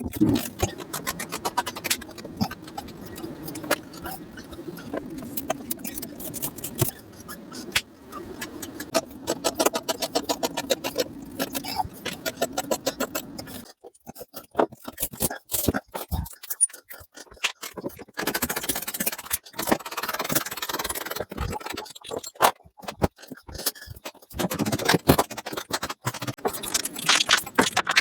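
Tools and metal parts clinking, knocking and scraping as trim and body parts are taken off an old Dodge truck. A steady hum cuts off abruptly about halfway through, and two bursts of rushing noise follow near the end.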